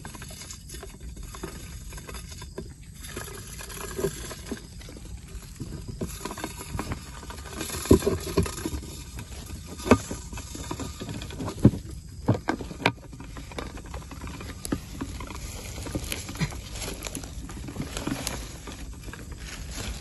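Rustling handling noise from a clear plastic insect box being held and moved over grass, with a handful of sharp knocks on the plastic about halfway through.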